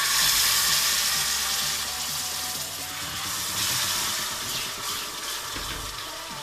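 Cold water poured into a pot of hot flour toasted in oil, the roux sizzling loudly as the water hits while a silicone spatula stirs it. The sizzle is strongest in the first second or two and then slowly dies down.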